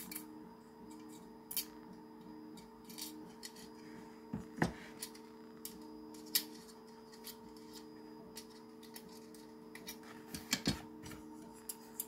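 Grey 3D-printed plastic pen-holder parts being handled and fitted together by hand: scattered light clicks and taps of hard plastic on plastic, with a few louder knocks, over a steady faint hum.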